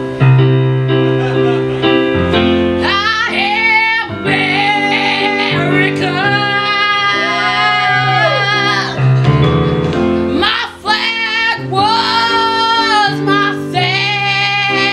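A woman singing a slow song with a wavering voice over held accompaniment chords. For the first two seconds or so only the chords are heard, then the voice comes in.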